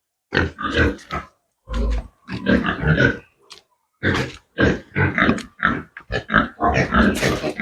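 Domestic pigs grunting, a run of short, irregular grunts with brief pauses between them.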